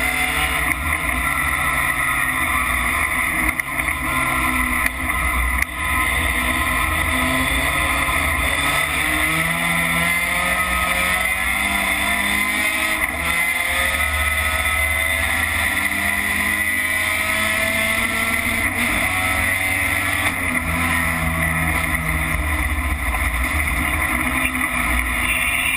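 Racing pickup truck's engine heard from inside its cabin at full racing load, its revs rising and falling through the gears and corners.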